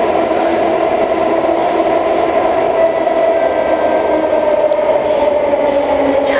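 SMRT C651 metro train running, heard from inside the carriage: a steady rumble of wheels on the track with the whine of its traction motors, the whine sinking slowly in pitch.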